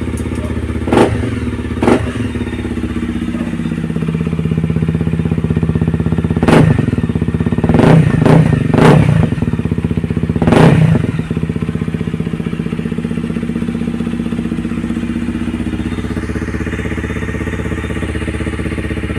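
Honda CRF250's single-cylinder four-stroke engine idling through an aftermarket FMF header pipe and muffler, with sharp throttle blips about a second in, near two seconds, and a burst of four or five between about six and eleven seconds. It is a sound the owner calls fierce ("lupit na tunog").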